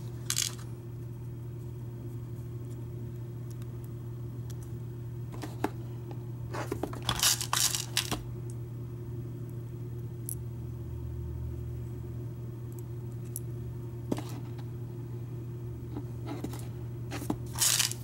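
Small metallic clicks and clinks of brass lock pins, a Schlage Everest cylinder plug and its keys being handled while the plug is pinned up to the key, coming in a few scattered clusters, the loudest about seven seconds in and near the end. A steady low hum runs underneath.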